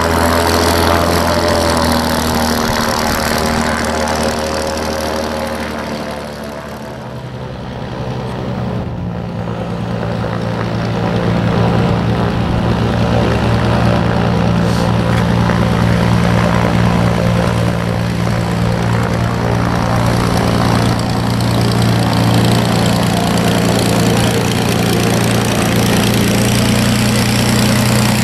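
Velocity XL's piston engine turning its three-bladed carbon-fiber pusher propeller as the plane taxis at low power. It fades a little about seven seconds in, then runs steadily and louder as the plane comes close.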